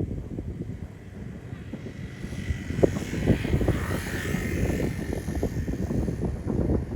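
Aerial fireworks going off at a distance: a run of dull booms and pops over a low rumble, with a hissing crackle that swells and fades in the middle. Wind buffets the microphone.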